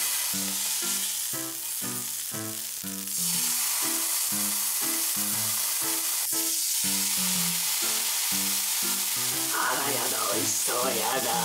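Wagyu steak sizzling steadily as it sears, over background music with a repeating pattern of short notes.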